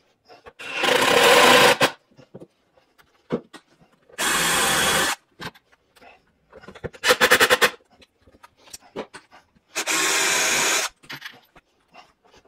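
Cordless drill run in four short bursts about three seconds apart, screwing a metal drawer slide onto a wooden drawer box. The third burst stutters in rapid pulses. Light clicks and knocks of handling fall between the bursts.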